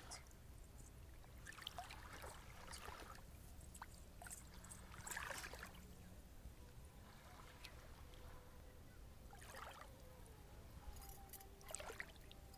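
Faint shoreline ambience: a low steady rumble with soft washes of noise every few seconds, much like small waves lapping at the water's edge.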